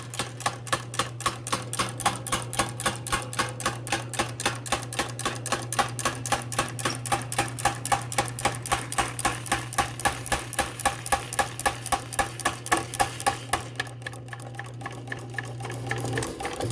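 Foley 385 retoother cutting saw teeth in a thin 1095 steel plate: its punch clacks about five times a second over the steady hum of its motor. The clacking dies away about three-quarters of the way through as the piece is finished, and the motor hum stops near the end.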